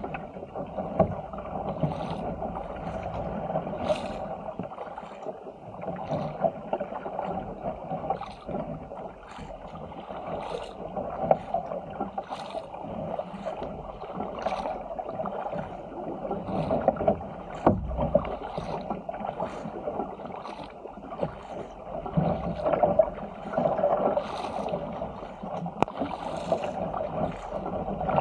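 Water rushing and sloshing along the hull of a Stealth 475 fishing ski paddled through sea chop, with the paddle blades splashing in about once a second.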